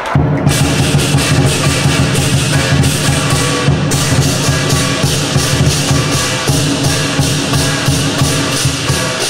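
Chinese lion dance percussion: a large drum struck in fast, dense beats with clashing cymbals, starting suddenly.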